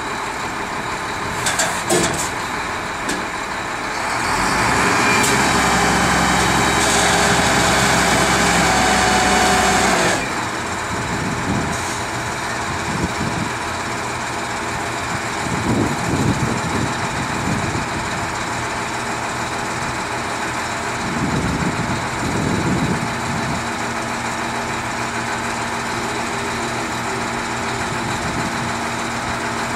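Diesel engine of an XJ968-23 block handler running. From about four to ten seconds in it revs up and holds steady under hydraulic load as the forks lift and tilt back a heavy stone block, then drops back to idle. There are a couple of sharp knocks about two seconds in.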